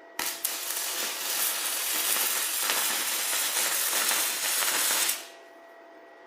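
Electric arc welding with an iBELL gasless welding machine: a steady crackling arc that strikes about a quarter second in and stops about five seconds in. A faint steady whine from the machine remains after the arc stops.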